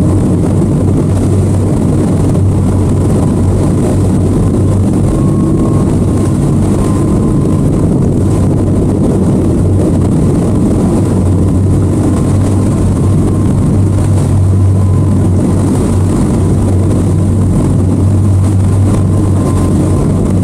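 Twin Suzuki outboard motors running steadily under load while towing a boat, a constant drone with the rush of the churning wake behind them.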